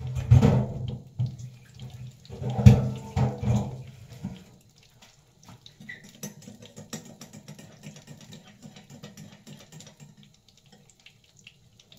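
Water running in a kitchen sink in two short bursts within the first four seconds, then a faint steady low hum with light ticks.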